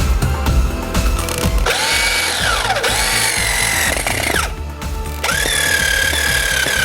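GLOBAL 21 cordless drill's motor running in two trigger pulls. The first spins up about two seconds in, with the pitch rising, dipping and rising again, then it stops. The second starts about five seconds in and runs at a steady high pitch.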